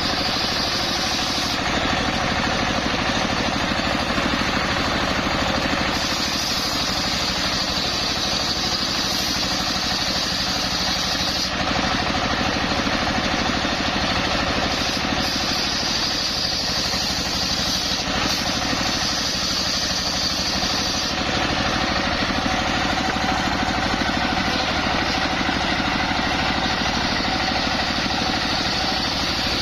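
Engine-driven homemade circular sawmill running steadily, with a high whine that comes and goes several times.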